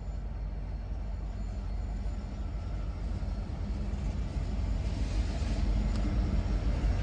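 Several diesel freight locomotives rolling past, a steady low engine and wheel rumble that grows louder as the units come nearer.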